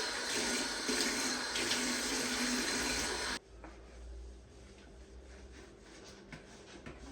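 Water running steadily from a tap, shut off abruptly about three and a half seconds in; faint small clicks and handling noises follow.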